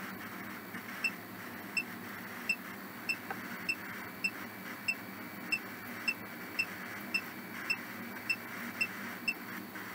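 Ghost box app running: a steady hiss of static with a short high beep repeating evenly, a little under twice a second.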